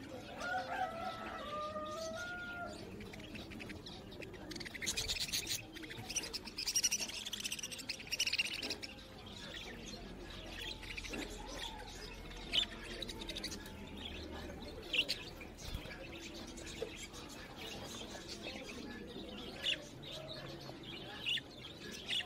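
Small birds chirping and whistling in the background, with a few sharp clicks and taps from handling a wooden block fitted with a ball bearing.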